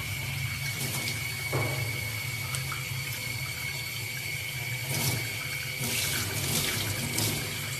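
Tap water running steadily, with a few short splashes or knocks, under a steady high-pitched whine.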